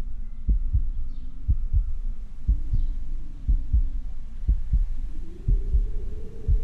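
Heartbeat sound effect: low double thumps (lub-dub) about once a second, over a low drone that rises in pitch about five seconds in.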